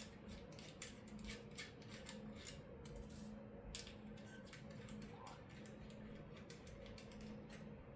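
Faint, irregular small clicks and ticks of metal holster-hanger hardware and its thumb screw being handled while the hanger is fitted to a belt, over a low steady hum.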